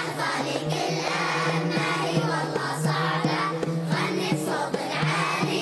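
Large group of children singing an Arabic song together, accompanied by an oud and a steady percussion beat of about two strokes a second.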